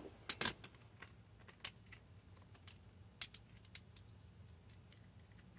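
Scattered light clicks and taps of a torque wrench with its socket and extension being handled and fitted, a few sharper clicks at the start, then fainter, irregular ones.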